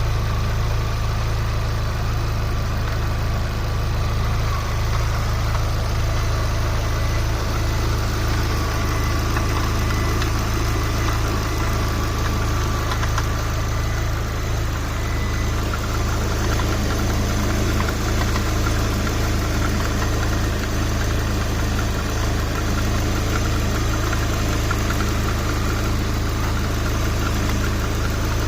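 Lada Priora 21126 16-valve four-cylinder engine idling steadily with a fast, even knock from the timing-belt tensioner roller. The knock comes from the tensioner roller, which has lost its dust shield and taken in dirt.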